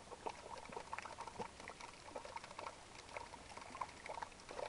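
Faint, irregular patter of water splashing and trickling, a scatter of small wet clicks and crackles.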